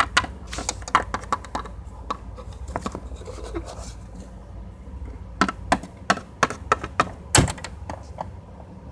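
Plastic toy figurines being handled and set down on a plastic playset: a scatter of light clicks and taps in the first couple of seconds, then another run of knocks past the middle, the loudest one near the end.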